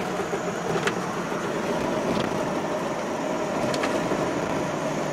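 Steady engine and road noise inside a moving car's cabin, with a couple of faint ticks.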